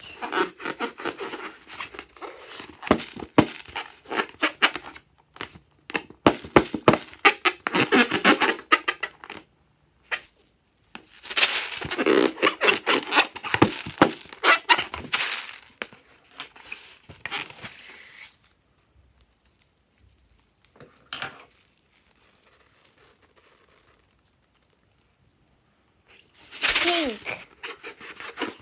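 Hands rubbing and squeezing a long rubber balloon, the rubber crackling and squeaking in dense bursts that stop about two-thirds of the way through. Near the end a voice calls out a colour name.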